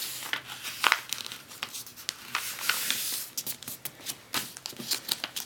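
A sheet of paper being handled and folded: crinkling, rustling and sharp creasing clicks as a paper-airplane wing is folded down.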